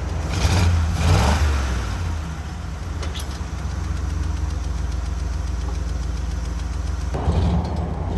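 Jeep J20 pickup's engine running, revved up twice within the first second and a half, then holding steady, and rising again about seven seconds in.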